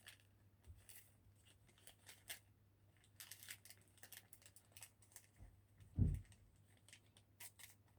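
Faint rustling and crinkling of a taped package being handled, with scattered small clicks and a dull thump about six seconds in.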